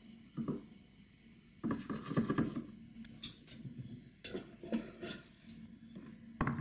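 Kitchenware clinking and knocking: a few scattered light knocks, with a busier clatter of dishes about two seconds in.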